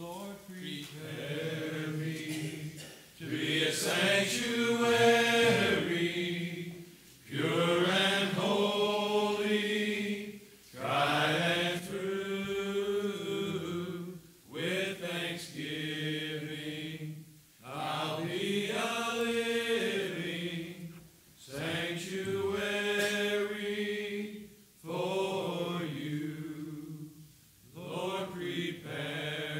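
A man praying aloud in a chant-like delivery, his pitch held and rising and falling, in phrases of about two to three seconds with short pauses for breath between them.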